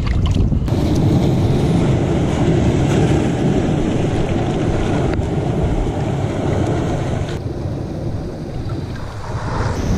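Steady wind noise buffeting the microphone over the wash of surf on the rocky shore, mostly deep and rough, easing off briefly near the end.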